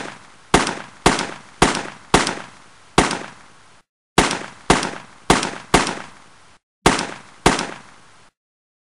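Rifle gunshot sound effects: single loud shots with a ringing tail, about one every half second. They come in three bursts of five, four and two shots, and each burst's echo cuts off abruptly.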